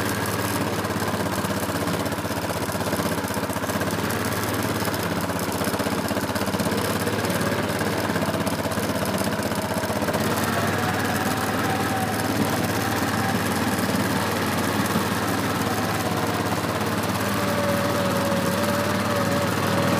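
A small engine running steadily, its pitch rising a little partway through and dropping again near the end.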